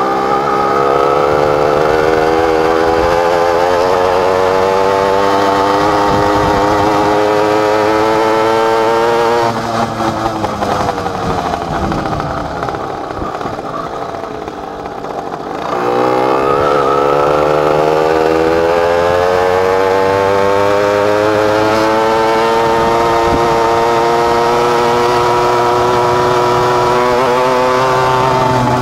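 Two-stroke engine of a Dadalt MR 60 minibike under way, its pitch climbing as it accelerates. About a third of the way through the throttle closes and the note falls and quietens for several seconds. Then the throttle opens and the engine revs up again, climbing steadily.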